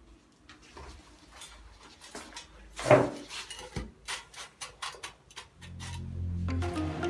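Light clicks and taps of cookies and dishes as cookies are laid into the dessert dish, with one louder knock about three seconds in. Background music fades in over the last second and a half.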